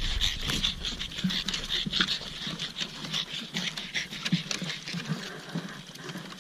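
A pug panting in quick, rhythmic breaths, about three a second, with light taps of footfalls along the walk.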